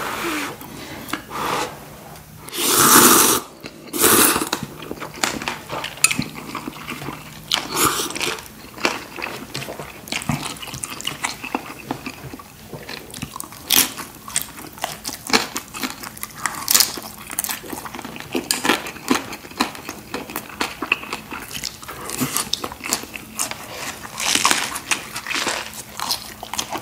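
Close-miked eating of spicy instant ramen noodles: a loud slurp of noodles about three seconds in, then chewing with many small wet clicks and smacks, and another slurp-like rush near the end.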